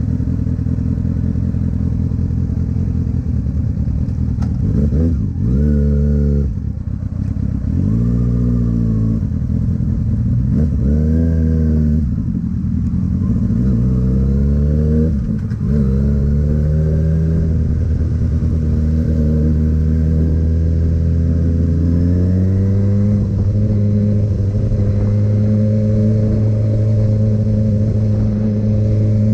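Kawasaki Ninja ZX-6R inline-four engine accelerating through the gears, its pitch rising and dropping at each shift several times, then holding a steady note at cruising speed for the last third.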